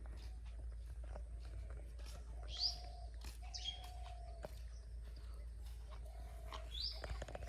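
Birds calling: a few short, high falling chirps with lower drawn-out call notes between them, over a steady low rumble.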